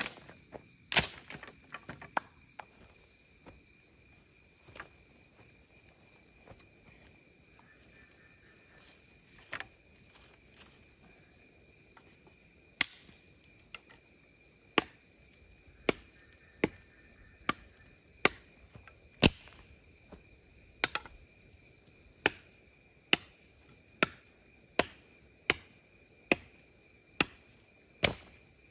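A large knife chopping into a wooden branch: sharp chops at about one a second through the second half, with a few scattered knocks near the start. A steady insect drone runs underneath.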